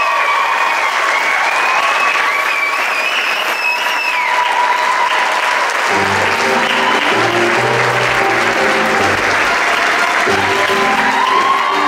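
Audience applauding over live theatre music. A held, wavering note ends about four to five seconds in, and about six seconds in a new passage of music with low bass notes starts under the continuing applause.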